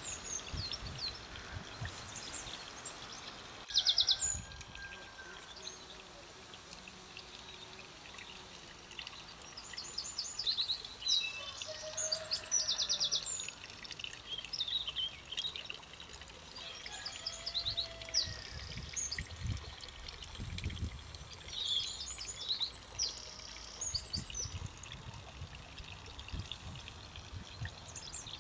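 Garden songbirds singing and calling, with quick high trills and chirps coming and going; the loudest trill is about four seconds in. A low rumble rises and falls underneath.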